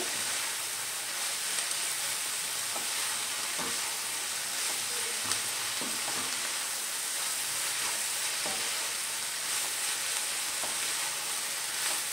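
Shredded cabbage sizzling steadily in a kadai over a high gas flame, frying off its moisture, while a wooden spatula stirs it with a few light scrapes and taps against the pan.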